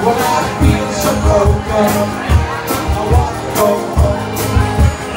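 Band playing an upbeat song with a steady drum beat and singing.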